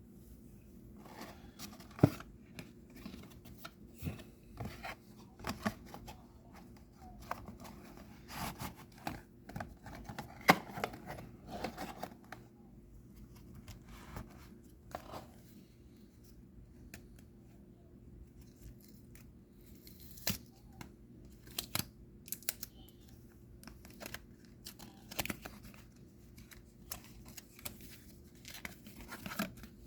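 A trading-card booster pack being opened by hand, its wrapper tearing and crinkling, with many irregular sharp clicks and snaps from handling the pack and cards. The loudest snaps come about 2 and 10 seconds in.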